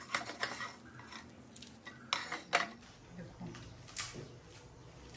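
Dishes clinking and knocking as they are handled: a handful of sharp clinks, the loudest two close together a little over two seconds in.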